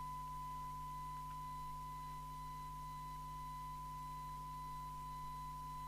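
Steady 1 kHz test tone from a Jopix GS60 CB radio receiving a test signal with the squelch off, the tone used for a SINAD sensitivity measurement. It is heard over a faint hiss and a low hum.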